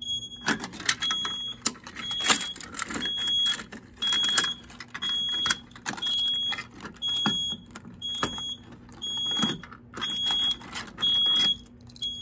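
Fire alarm system in alarm, sounding a steady train of short high electronic beeps, with clicks and jangling as a manual pull station is handled and reset with a key.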